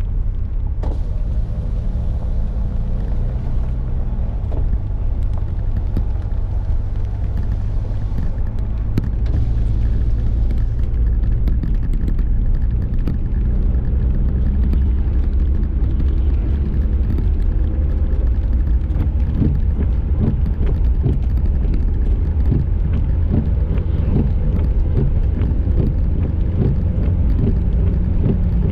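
Car driving, with a steady low engine and road rumble and many short ticks through the second half.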